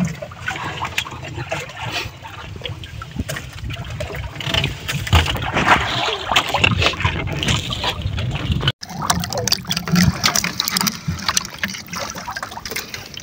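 Sea water sloshing and trickling around a small wooden fishing boat, with scattered knocks and handling noises; the sound drops out for an instant about two-thirds of the way through.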